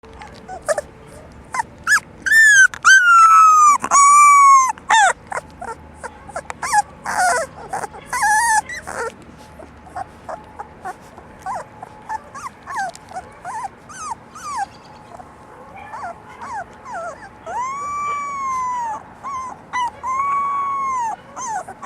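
Four-week-old Labrador retriever puppies whining and yipping: a cluster of loud, drawn-out whines about two to five seconds in, many short yips and whimpers after, and two longer whines near the end, with scattered small clicks.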